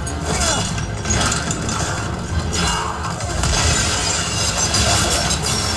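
Film battle soundtrack: orchestral score mixed with dense crashing and shattering effects as a ram-drawn war chariot careers over ice.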